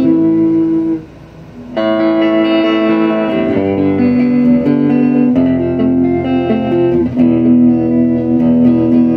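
Electric guitar played through a 1956 Guild tube amplifier: held, ringing chords that change several times, with a short break about a second in.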